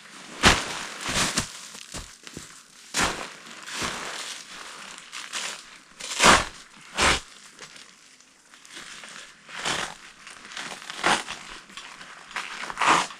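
Irregular rustling and crumpling of fabric and plastic, with scattered knocks, as camping gear such as sleeping bags is handled and laid out.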